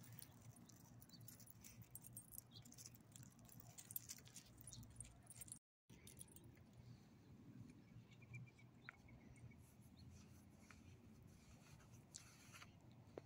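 Near silence with faint scattered ticks and scuffs of footsteps and a small dog's paws on gravel and asphalt.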